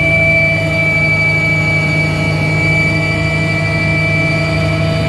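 Cockpit noise of a twin-turbine helicopter in cruise flight. A steady turbine whine at several pitches sits over a low, even rumble from the engines and rotor.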